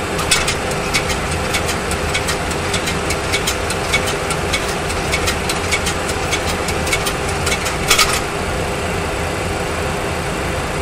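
Steady simulated engine and airflow noise in a Boeing 737 Classic full flight simulator cockpit on final approach. A run of faint rapid clicks, about four a second, runs through it, with a louder clack about eight seconds in.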